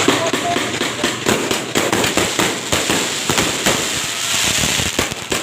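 New Year fireworks and firecrackers going off in a dense, irregular barrage of many overlapping sharp bangs and crackles.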